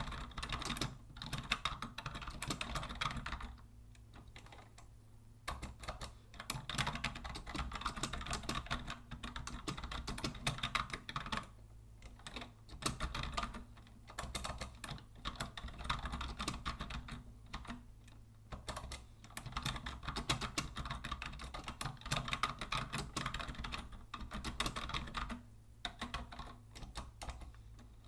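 Typing on a vintage Logitech Deluxe 104 wired keyboard: fast runs of key clicks broken by short pauses every few seconds.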